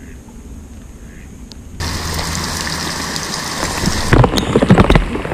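Heavy thunderstorm rain pouring onto the reservoir water, a dense steady hiss that starts abruptly about two seconds in. From about four seconds in, loud irregular crackling patter joins it.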